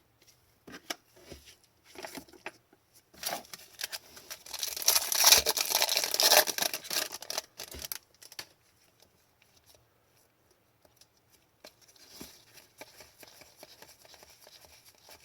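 Hockey trading cards and their packaging being handled: light clicks and rustles, with a louder stretch of crinkling and tearing from about three to eight seconds in.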